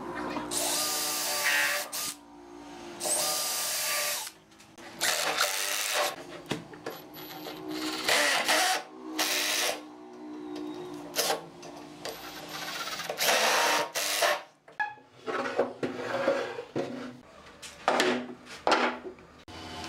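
Cordless drill and cordless impact driver running in repeated short bursts, drilling countersunk pilot holes and driving long wood screws into a wooden frame. The first bursts carry a steady motor whine.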